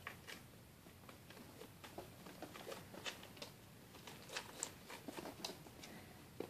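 Faint rustling and scattered light clicks of kittens scrabbling in a wicker basket and on towels during play, busiest from about three seconds in.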